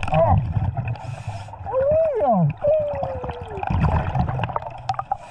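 Scuba diver breathing through a regulator underwater: a short hiss of inhalation about a second in, and low rumbling bursts of exhaled bubbles. Between about 2 and 3.5 seconds there is a muffled, voice-like sound through the mouthpiece that rises and then falls in pitch.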